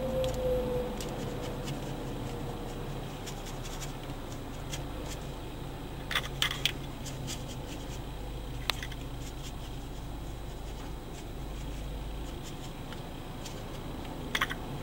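Light scratchy clicks and taps of a waterbrush dotting on paper, over a steady low hum inside the car. There are a few sharper taps about six seconds in and again near the end.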